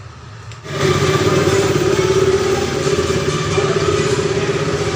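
Motorcycle engine running at idle, coming in suddenly and loud under a second in and holding steady.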